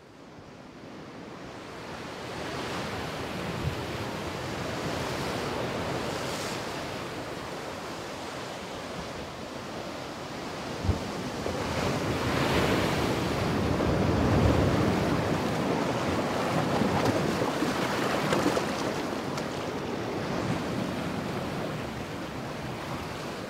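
Sea waves breaking and washing over shoreline rocks, with wind buffeting the microphone. The surf fades in at the start and rises and falls in several surges, loudest about halfway through.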